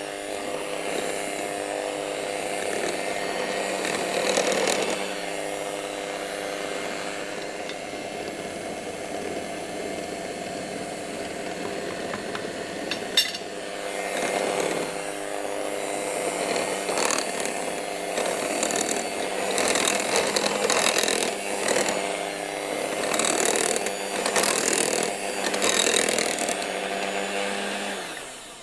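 Electric hand mixer running steadily at low speed, its beaters churning flour into a stiff, crumbly dough in a glass bowl, with scraping noise from the mix and one sharp click about halfway through. The motor stops just before the end.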